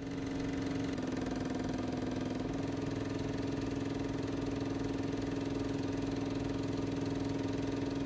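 Film projector running: a steady mechanical whirr with a fast, even clatter.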